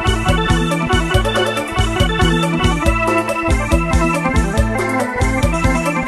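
Background music: keyboard chords over a steady drum beat.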